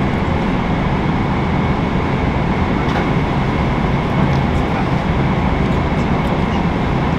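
Steady airliner cabin noise in flight: an even, unbroken rumble with a hiss above it.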